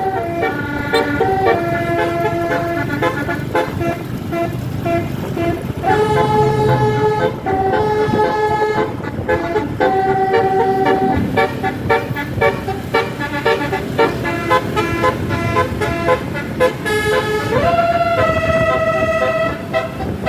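Bus's Basuri 36-note telolet horn playing a tune of held, chord-like notes that change every second or so, with one note sliding upward near the end, over the rumble of the moving bus.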